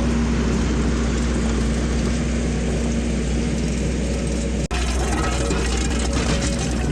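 Kubota SVL90-2 skid steer's diesel engine running steadily with a constant hum, with a momentary break in the sound about two-thirds of the way through.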